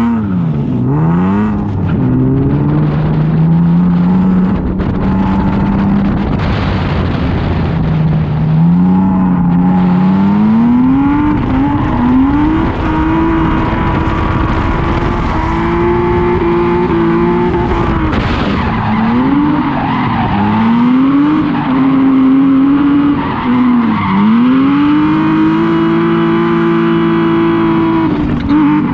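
Drift car engine revving hard, its pitch climbing and dropping again and again with the throttle and held high through longer slides, over the steady noise of tyres sliding.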